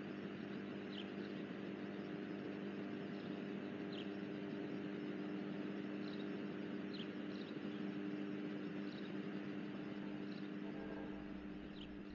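Outdoor night ambience: a steady low hum under a soft hiss, with a few short, high, falling chirps scattered through it. A faint low rumble comes in near the end.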